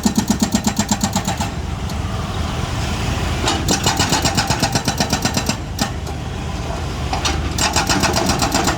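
Excavator's diesel engine running, with three spells of fast, even clattering, about nine strikes a second, over the steady engine rumble.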